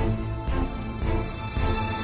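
Background music with a steady beat, about two beats a second, over held notes.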